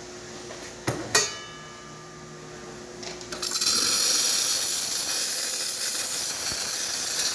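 Two sharp clinks with a short ring about a second in, then the VBM espresso machine's steam wand opens with a brief sputter and runs with a strong, steady hiss of steam: the replaced steam valve delivering full steam pressure.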